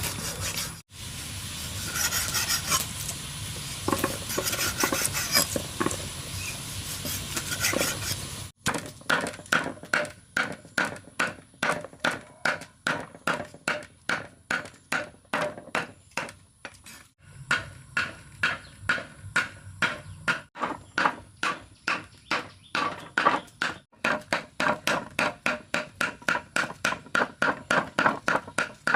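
Kitchen clatter, then from about eight seconds in, steady, even strikes of a blade on a wooden chopping board, roughly three a second, as food is chopped.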